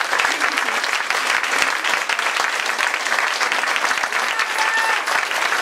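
Audience applauding: dense, steady clapping right after a song ends.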